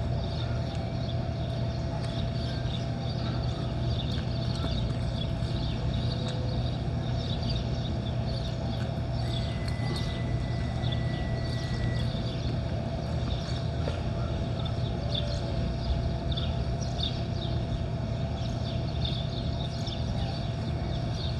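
Birds chirping over a steady low hum of outdoor background noise, with no distinct bell strikes.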